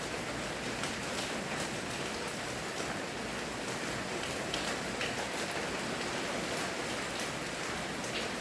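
Steady rainfall, a continuous hiss with scattered individual drops ticking on a surface.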